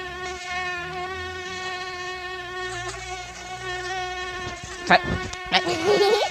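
Mosquito buzzing sound effect: a steady whine holding one pitch. About five seconds in, two quick swooping tones cut across it, then a warbling sound begins.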